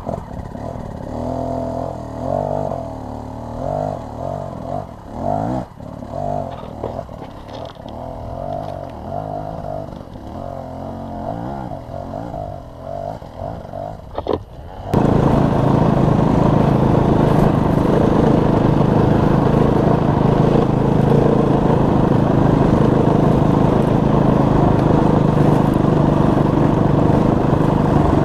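Dirt bike engine heard from the rider's helmet, revving up and down over and over as the bike climbs a steep, rocky trail. About halfway the sound jumps suddenly to a much louder, steady drone as the bike runs along at an even pace.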